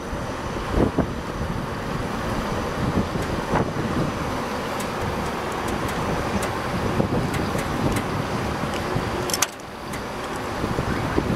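Steady outdoor rooftop noise of wind and distant city traffic, with a few sharp clicks about nine seconds in.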